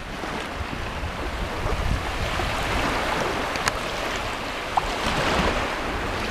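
Incoming tide water washing and lapping in the shallows among mangrove breathing roots, a steady rushing noise, with wind rumbling on the microphone.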